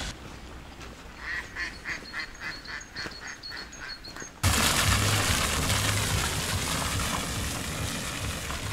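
Waterfowl honking: a run of about ten calls, two or three a second. About halfway through it cuts off abruptly and a louder, steady rushing noise with a low rumble takes over.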